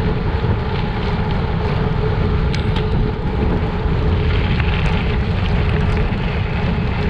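Wind rushing over the microphone of a camera on a bicycle riding fast, mixed with the rumble of tyres rolling on a gravel road: a steady, loud rush with a faint steady hum and a brief click about two and a half seconds in.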